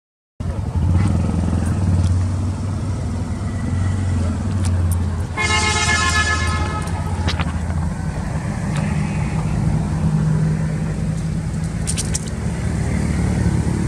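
A motor vehicle's horn sounds once, held for about two seconds, around the middle, over the steady low hum of a running engine.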